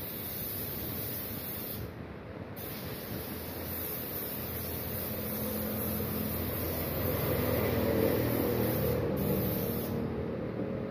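Compressed-air paint spray gun hissing as it sprays paint onto a motorcycle wheel rim. The hiss stops briefly about two seconds in and again near the end, where the trigger is let off.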